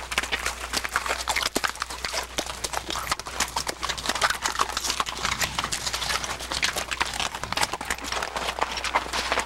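Horse hooves clopping on gravelly ground, a quick, uneven run of hoof strikes as the horse moves along at a brisk pace.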